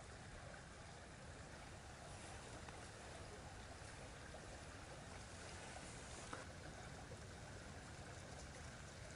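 Faint, steady rushing of a creek, with one soft click about six seconds in.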